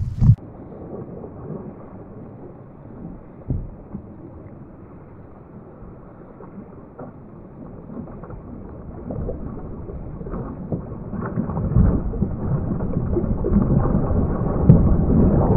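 Muffled water and wind noise from a kayak on the sea, a rumbling haze with the high end cut off, growing louder through the second half.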